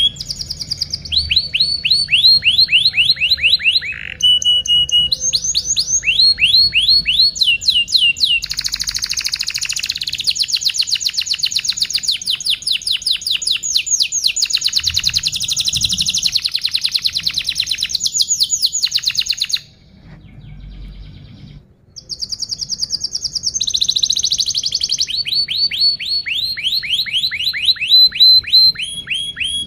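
Domestic canary singing a long song of fast trills: rolls of rapidly repeated down-sweeping notes, switching to a new trill every few seconds, with a brief break about two-thirds through.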